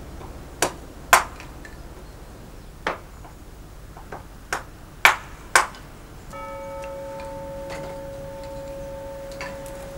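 A handful of sharp, irregular knocks, about seven in six seconds. About six seconds in, a steady bell-like tone with several overtones sets in and holds.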